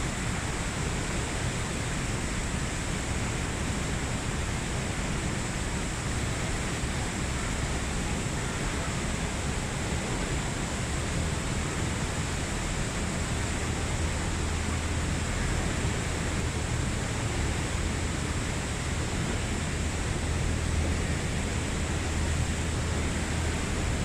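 Rhine Falls, a broad single-drop waterfall, pouring with a steady, even rushing noise that does not change.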